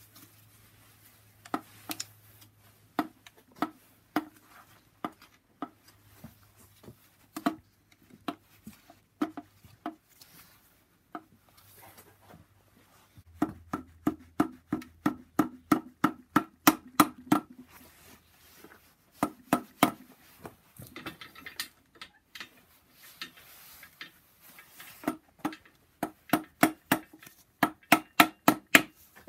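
Rubber mallet tapping a BMW N54 oil pump housing down onto its locating pins on the engine block. Single taps come about a second apart at first, then quick runs of several taps a second from about halfway through. The pump is a tight fit on its pins and is being driven home to seat it.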